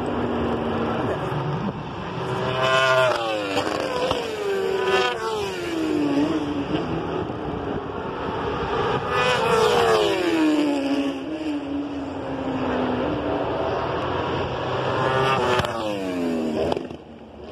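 Superbike racing motorcycles passing at high speed in three waves, each screaming engine note falling in pitch as the bikes go by, with several bikes overlapping in the first wave.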